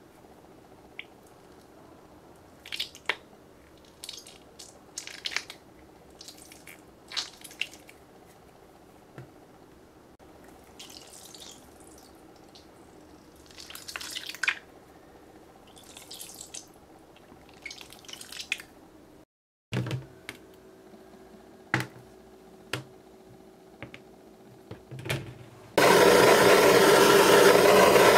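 Mesh squishy stress balls squeezed by hand: irregular squelching and crackling squeezes, one at a time or in short clusters. About two seconds before the end, a handheld gas torch starts, burning with a loud steady hiss.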